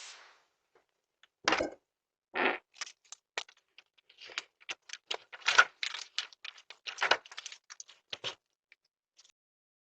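A quick run of sharp clicks and rattles, with two louder knocks in the first few seconds, then many short clicks packed closely together for about five seconds.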